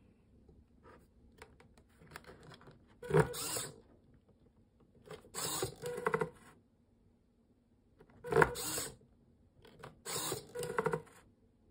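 Small hobby servo motors whirring in four short bursts of about half a second to a second each, as the model's paper curtain rolls down and its cardboard window flaps swing shut.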